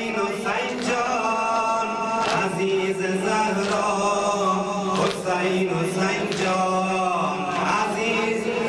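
A male reciter chants a Shia mourning lament (noha) into a microphone, holding long wavering notes. A sharp slap comes about every second and a half, in time with it, from mourners beating their chests.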